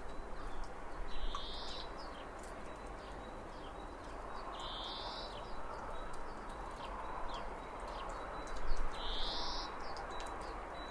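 A bird calling outdoors: a buzzy, high call about two-thirds of a second long, given three times roughly four seconds apart. Scattered short chirps or ticks and a steady background hiss of outdoor ambience run beneath it.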